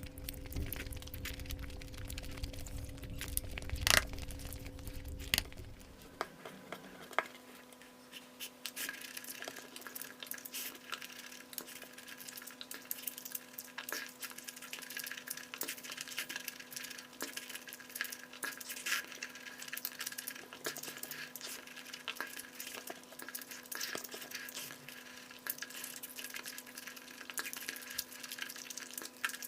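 Close-miked eating and food-handling sounds of egg curry and basmati rice: many small wet clicks, squelches and chewing noises, with two sharper clicks about four and five seconds in. A low rumble stops about six seconds in, and a faint steady hum runs beneath.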